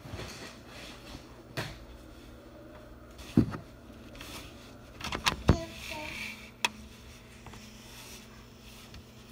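Handling noise of a camera being moved and covered up: a few separate knocks and bumps, the loudest about three and a half and five and a half seconds in, over quiet room noise.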